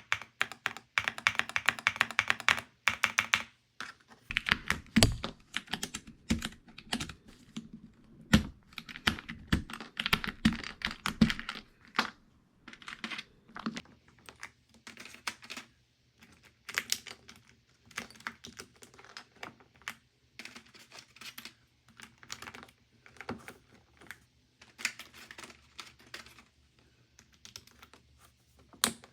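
Typing on a Galaxy 65 65% mechanical keyboard fitted with XVX Crystal Jelly OEM-profile keycaps. Quick runs of keystrokes give way to slower, scattered presses, and several heavier, deeper key strikes fall in the first half.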